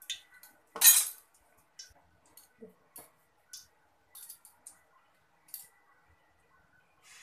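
Hot oil in an aluminium karai crackling with scattered small pops and ticks around a test drop of batter, with one loud clink about a second in. Near the end a lump of palm-fruit batter goes into the oil and starts to sizzle.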